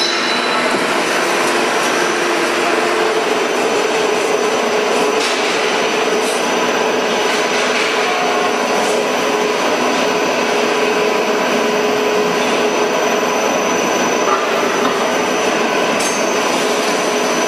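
Glazed tile roll forming machine running, its forming rollers and gear drive shaping red coated steel sheet into a glazed tile profile: a loud, steady mechanical whir with a thin high tone above it.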